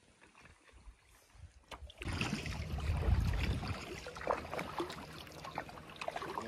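Water splashing and dripping around a kayak on calm sea, faint at first and louder from about two seconds in, with wind rumbling on the microphone for a moment.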